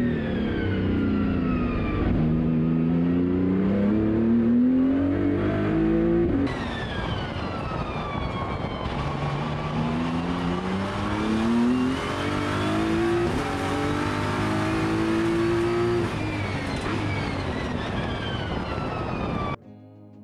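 BMW M4 GT3 race car's twin-turbocharged straight-six revving hard on track. Its pitch climbs repeatedly as it pulls through the gears and falls away as the driver slows for corners. Near the end it cuts suddenly to soft music.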